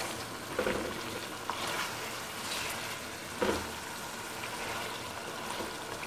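Lamb pieces frying in oil with tomatoes and chilli, a steady sizzle, while a wooden spoon stirs them round the pot with a few scrapes, one a little louder about three and a half seconds in.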